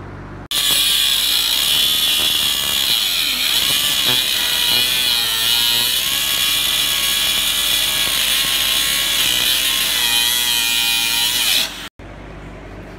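Handheld angle grinder grinding off a steel fender bracket, a loud high-pitched grind whose pitch wobbles as the disc bites. It starts about half a second in and stops abruptly near the end.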